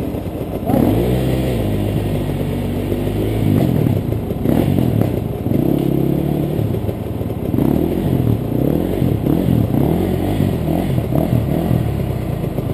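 Enduro dirt bike engines running. A nearby engine grows louder about a second in, and its pitch rises and falls again and again in quick throttle blips through the second half.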